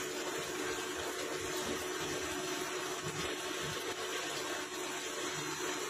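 Nakamura-Tome TW-20 CNC lathe turning a bar under flood coolant: steady splashing and spattering of coolant over the cut, with the machine's steady hum underneath.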